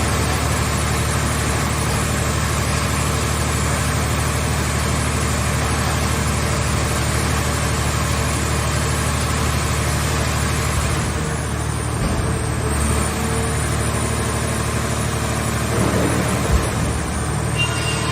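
Engine and hydraulic drive of a portable car-body baler running steadily, with one short knock near the end.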